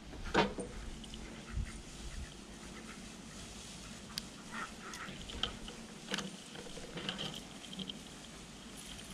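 Ducks quacking now and then in short runs, mixed with small clicks and taps of pliers and crimp connectors being handled.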